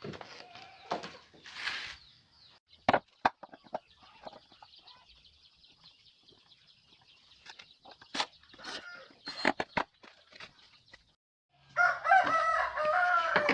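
A rooster crows once near the end, the loudest sound here. Before it come scattered sharp knocks and clicks, typical of parts being handled and fitted during assembly.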